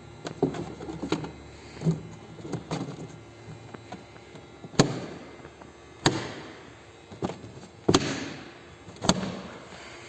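A series of sharp, irregular knocks and clanks, each ringing briefly, the loudest four coming in the second half.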